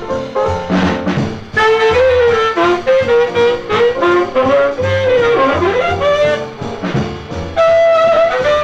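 Jazz-style background music led by a horn melody over a bass line, growing louder about a second and a half in; a little after the middle one note bends down and back up.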